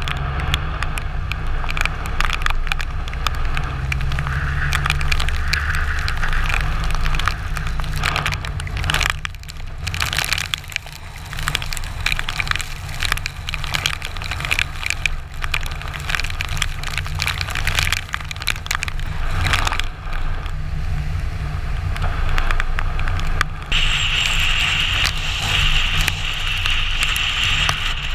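Storm ambience of heavy rain and wind buffeting the microphone, a low rumble under a crackling patter of drops; about 24 seconds in a steadier hiss sets in.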